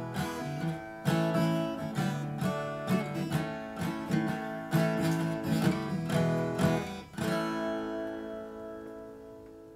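Acoustic guitar strumming an outro tune, ending on a last chord from about seven seconds in that rings on and fades away.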